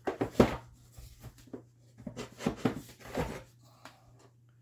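Markers being handled and set down on a tabletop: a few short clicks and knocks about a second apart.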